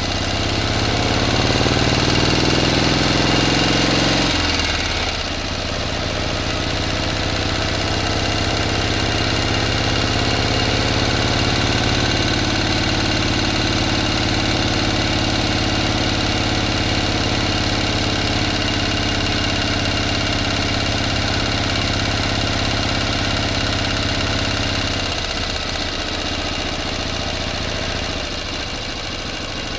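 Motor running steadily. Its pitch climbs over the first four seconds, drops back about four to five seconds in, then holds steady, shifting slightly near the end.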